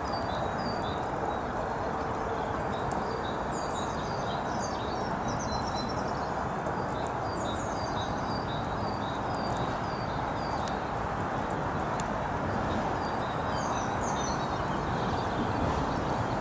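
Small songbirds chirping, short high notes repeating every half-second or so with a few quick falling trills, over a steady low rushing background noise.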